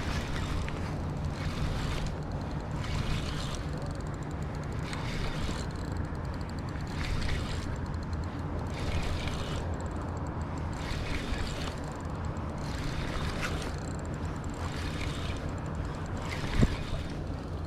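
Steady low rumble of rushing water, with a hiss that swells and fades about every two seconds, and one sharp knock near the end.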